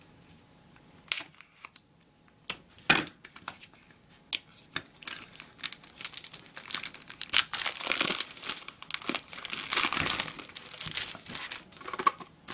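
Toy packaging being opened with scissors and torn off: a few sharp clicks at first, then a long stretch of crinkling and tearing.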